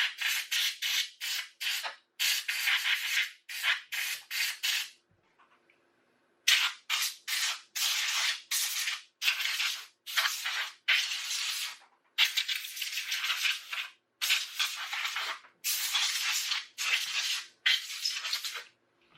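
Compressed air blown in many short blasts, about two a second with a pause about five seconds in, clearing dust from a laptop's cooling fan and vents.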